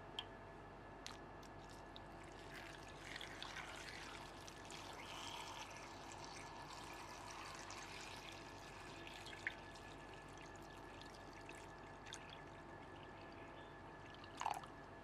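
A thin stream of water is poured steadily into a glass bowl of cut potato sticks, filling it with a soft, even splashing that begins a couple of seconds in. A few light clicks come over it, the loudest near the end.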